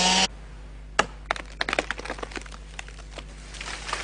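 Chainsaw cuts off just after the start; about a second later a sharp crack of wood, then a run of smaller cracks and snaps as the felled hardwood tree breaks at the hinge and goes over.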